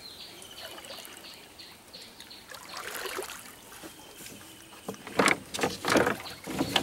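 Water lapping faintly in the bottom of a wooden boat where fish lie, then a run of loud splashes about five seconds in as a hand reaches into the water among the fish.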